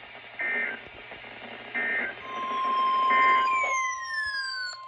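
EAS digital end-of-message bursts: three short, shrill, warbling data bursts about a second apart, signalling that the warning message is over. About two seconds in, a steady single-pitch alert tone starts and runs on, with a few falling whistle-like tones over it near the end.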